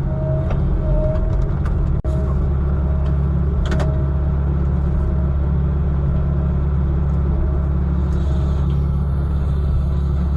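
Heavy diesel truck engine running with a deep, steady rumble, broken briefly about two seconds in.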